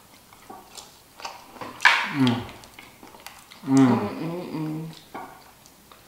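A person's voice making two wordless sounds: a short one about two seconds in that falls in pitch, then a longer held hum. Faint clicks, such as shells or utensils, sound between them.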